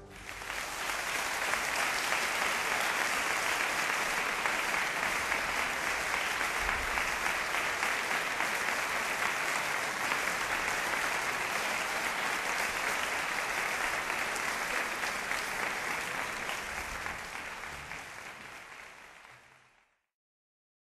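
Audience applause, a steady clapping that fades in the last few seconds and is then cut off to silence.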